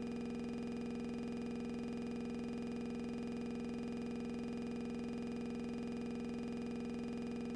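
A steady, unchanging electronic buzz: one low tone with many overtones, held at an even level without a break.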